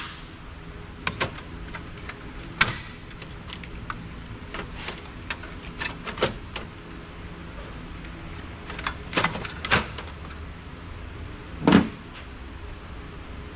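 Metal parts and tools clinking and knocking as a large office copier is taken apart by hand, a dozen or so separate sharp knocks, the loudest near the end. A steady low hum underneath.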